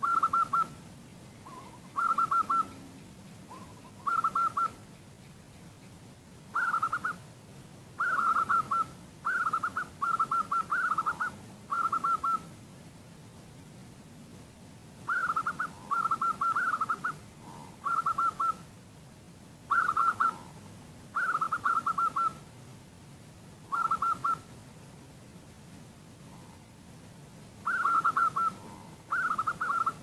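Zebra dove (perkutut) calling: short, rapidly stuttering cooing phrases at one pitch, each under a second, repeated every one to two seconds with a few longer pauses.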